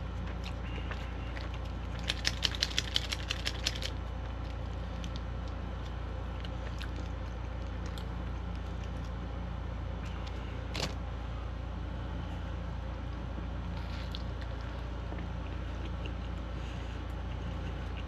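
A plastic sauce packet being handled and crinkled in the fingers: a quick run of about ten sharp crackles a couple of seconds in, and a single click later on. Underneath is a steady low hum.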